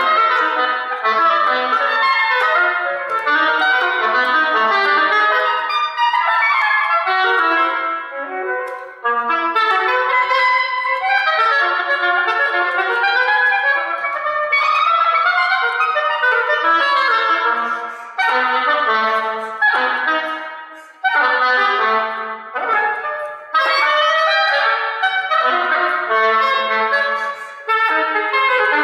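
Extended-range oboe (Loboe) playing a fast solo passage of quickly changing notes that leap between low and high registers. It breaks off briefly about eight seconds in and a few more times in the second half.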